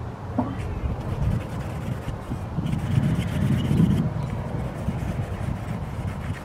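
Cloth rag rubbing over a sanded pine push stick, a rough scrubbing that grows louder around the middle.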